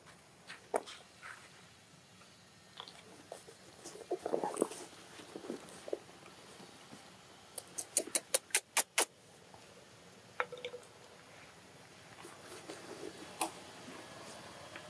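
Small sounds of baby macaques moving and handling food on stone: scattered light taps and clicks with a few short faint squeaks. A little past the middle comes a quick run of about seven sharp clicks.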